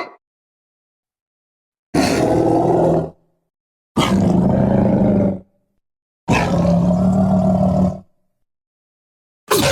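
Designed monster-roar sound effects for a were-hyena creature, mixed from film and dinosaur creature sounds. Three separate steady roars, each one to two seconds long, come after a silent gap, and a fourth starts just at the end.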